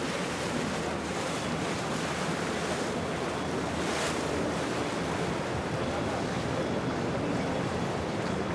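Steady wash of water and wind noise on the microphone, with boat engines running underneath; a brief hiss rises about four seconds in.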